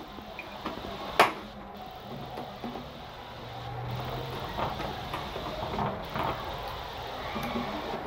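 Hand tools and stiff red cables being handled while wiring a meter enclosure: scattered light clicks and rustles, with one sharp click about a second in.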